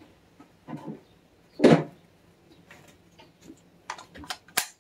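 A cordless impact driver and its battery pack being handled: a loud plastic knock a little under two seconds in, softer rustles, and a few sharp clicks near the end.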